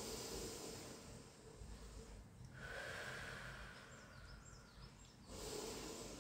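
A person breathing slowly in and out while resting in a stretch: faint, airy breaths, each lasting two to three seconds.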